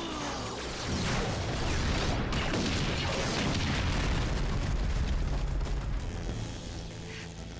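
A large explosion sound effect, a giant robot blowing up: a heavy, rumbling blast that swells about a second in, holds for several seconds and dies down near the end.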